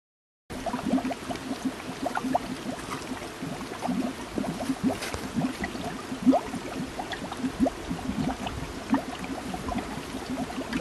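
Carbon dioxide gas bubbling up through the water of a mofetta in a hollow wooden stump: a steady stream of small, irregular bubble plops and gurgles, starting about half a second in.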